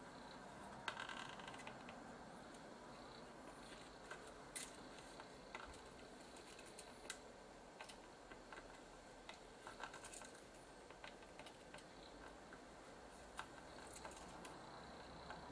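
Faint, scattered light clicks and scrapes of a soldering iron tip and metal tool against the pins of a surface-mount IC on a circuit board, as its last soldered pins are worked loose, over a quiet steady hiss.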